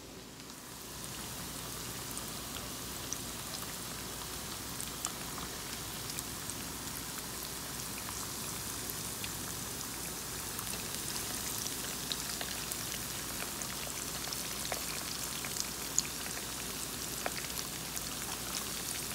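Breaded buffalo fish rib pieces shallow-frying in about half an inch of canola oil: a steady sizzle full of small pops and crackles, starting about a second in.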